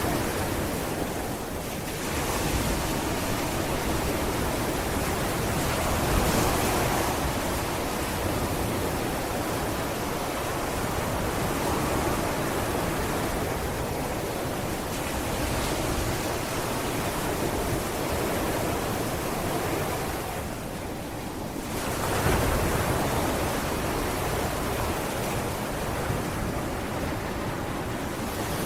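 Sea waves breaking and washing up a sandy beach: a steady rush of surf that swells with each wave, with the strongest surges about six seconds in and again a little after twenty-two seconds, after a brief lull.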